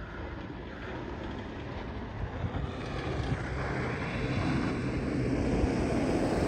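Modified Toyota Fortuner SUV engine running under load as it drives up a large sand dune, the engine and tyre noise growing steadily louder.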